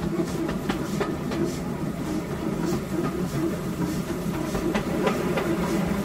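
Old steam train running: a steady low rumble with scattered sharp clanks and knocks.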